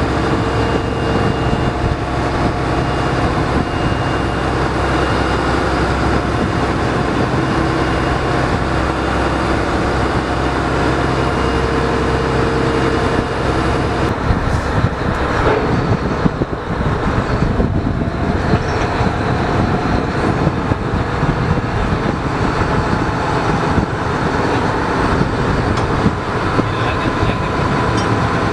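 A seiner's engine and deck machinery running steadily: a loud drone with a whine on top, and a few knocks about halfway through.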